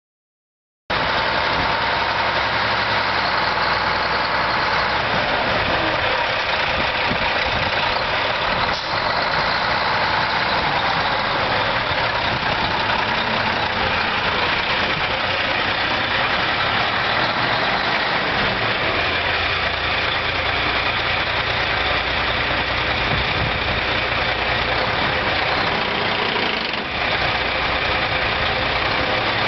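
Mack ENDT 676 six-cylinder diesel engine of a 1976 Mack water tanker truck idling steadily. It starts abruptly about a second in.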